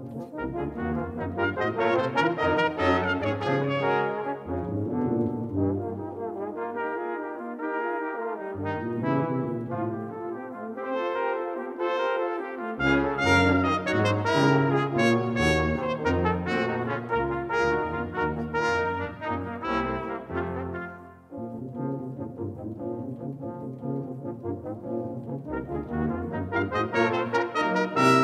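Brass quintet of two trumpets, horn, trombone and tuba playing a chamber piece in close harmony. The tuba's low line drops out twice in the middle, then comes back under the upper voices.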